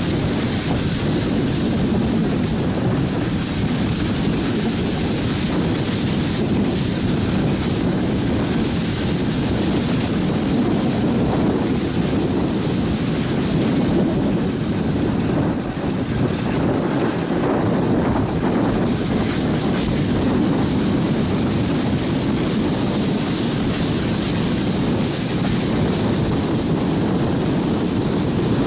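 Austerity 0-6-0 saddle-tank steam locomotive hauling a train at speed, heard from just behind the engine: a steady rumble of the running train with wind buffeting the microphone.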